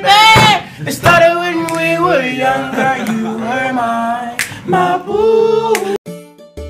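A person singing unaccompanied, the pitch sliding and wavering through a tune without clear words. About six seconds in, the singing cuts off and a quieter plinking keyboard tune starts.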